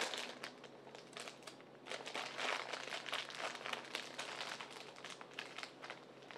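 Irregular rustling and crinkling from toy stuffing being handled and pushed into a fabric toy, busiest in the middle.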